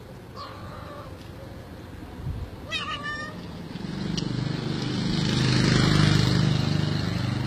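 A cat meowing, with a short cry about half a second in and a wavering cry about three seconds in. Over the second half a louder, low sound swells up and then eases.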